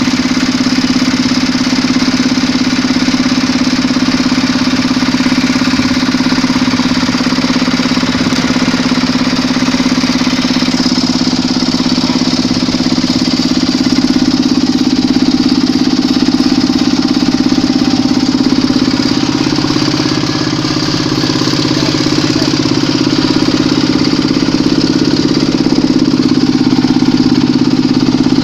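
Kubota diesel engine of a Quick H-140R combine harvester running steadily: a loud, continuous drone with a steady high hiss on top. Its low note shifts slightly about two-thirds of the way through.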